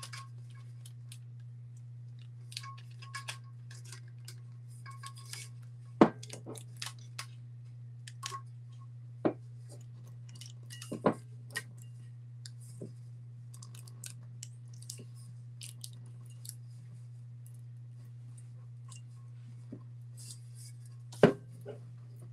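Hands working heat tape and sublimation paper around a metal tumbler: small crinkles, ticks and rustles, with a few sharp knocks, the loudest about six seconds in and again near the end. A steady low hum runs underneath.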